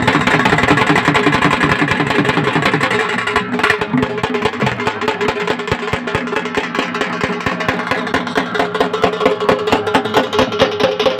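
Bundelkhandi Diwari folk music: fast, dense drumming with a steady droning tone held underneath.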